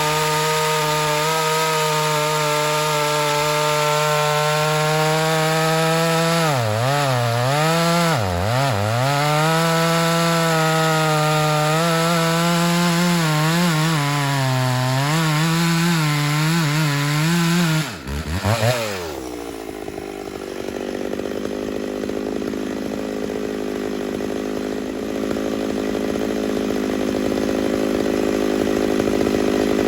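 Ported Homelite Super XL-925 82cc two-stroke chainsaw cutting through red oak under heavy load. The engine holds a steady high note and sags briefly twice about seven and eight seconds in. About eighteen seconds in the engine note drops suddenly, and the saw runs on lower and quieter, building slowly again near the end.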